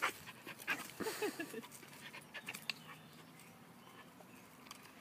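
A dog panting in quick breaths, with a few short whines about a second in; the panting dies down after about two seconds.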